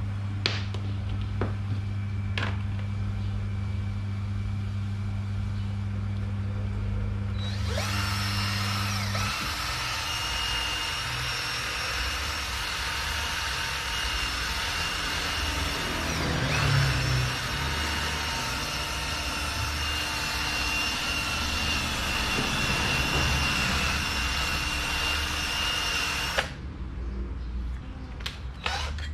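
Electric power drill running steadily for about eighteen seconds, with a high whine, starting about eight seconds in and cutting off suddenly near the end, used while smoothing the fan's motor shaft. Before it, a steady low electrical hum.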